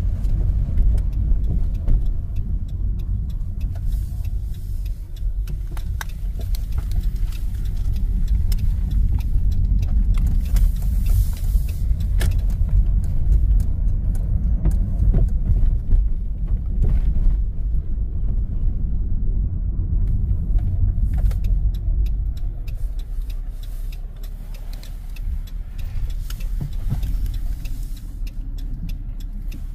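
Van's engine and road rumble heard from inside the cabin while driving slowly, with a few small rattles. It gets a little quieter near the end.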